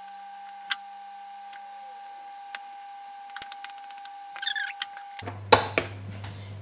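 Kitchen knife tapping and clicking against a bamboo cutting board while dicing mango: a few scattered taps, then a quick run of clicks about three seconds in. It ends with a louder knock as the knife is set down on the board.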